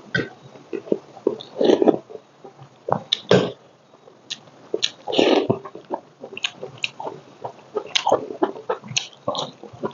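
Close-miked mouth sounds of a person eating rice and vegetables by hand: irregular wet chewing and lip-smacking clicks, with a few longer, louder slurping or breathing bursts.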